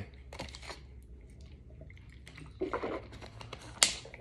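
Thin plastic water bottle being handled during a drink: faint crinkles and a sip, then a sharp crackle of the plastic near the end as the screw cap is twisted.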